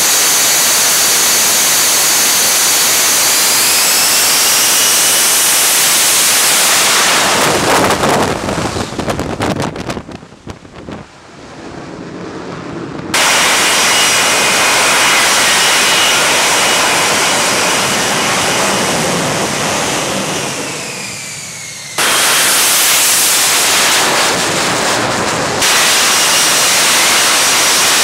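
F-35B Lightning II's Pratt & Whitney F135 jet engine running loud, a rushing roar with high whining tones that slide down in pitch now and then. The sound drops away and cuts back in abruptly a few times, as from spliced shots.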